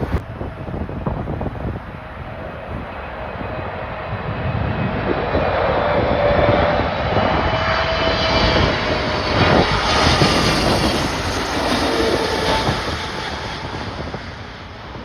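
Boeing 777-300ER's twin GE90 jet engines at high thrust, growing louder to a peak about ten seconds in, then fading with a falling pitch as the jet passes, over wind buffeting the microphone.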